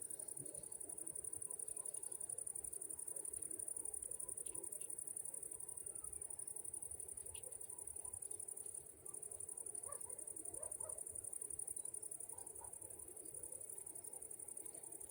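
Insects trilling: a steady, high-pitched, fast-pulsing chirr that dips briefly about halfway through.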